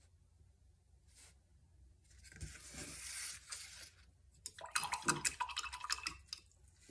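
A canvas panel being slid and turned on a cardboard work surface: a rubbing scrape, then a quick run of scratchy clicks as it drags.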